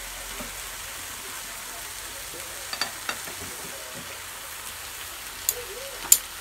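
Meat slices sizzling steadily on a grill pan over a portable gas burner, with a few sharp clicks of metal tongs against the pan, the loudest near the end.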